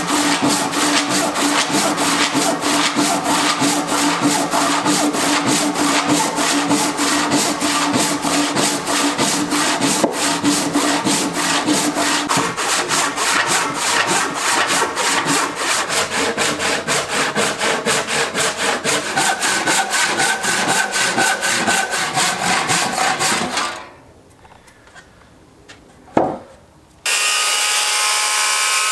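Handsaw rough-cutting thick cherry stock in fast, even back-and-forth strokes. Near the end the sawing stops, there is a brief quiet stretch with a single click, and then a steady hiss begins.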